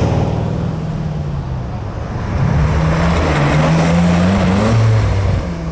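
Lamborghini Aventador's V12 engine pulling away: its note sags at first, then the revs climb steadily from about two seconds in and drop off near the end.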